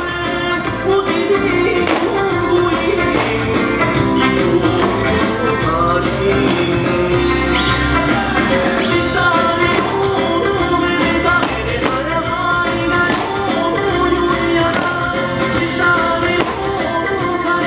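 Music for a creative eisa dance, a song with singing, played loud over a stage sound system, with paranku hand drums struck in time.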